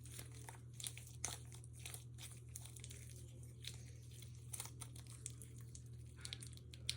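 Homemade glue-and-laundry-detergent slime squeezed and stretched by hand: faint, irregular crackling and small clicks, over a steady low hum.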